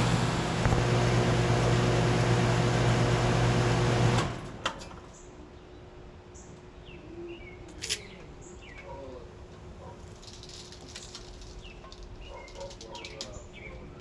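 A 2012 Bryant Legacy Line 2.5-ton air conditioner condensing unit runs with a steady low buzz, then shuts off about four seconds in. The scroll compressor's hum cuts out sharply, a click follows, and the condenser fan is left coasting down quietly.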